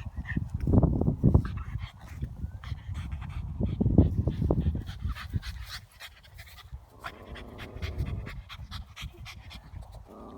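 A puppy panting.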